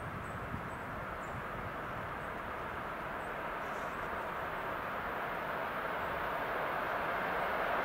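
Distant ED4M electric multiple unit approaching on the track, a steady rolling rumble that slowly grows louder.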